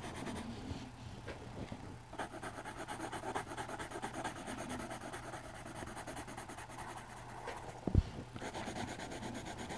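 Yellow colored pencil rubbing back and forth on drawing-pad paper in quick, repeated shading strokes. A single dull thump about eight seconds in.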